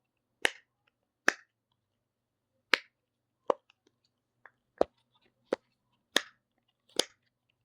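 Simple dimple fidget toy being pressed: a string of about eight sharp, separate pops at uneven intervals as its silicone bubbles are pushed through one by one.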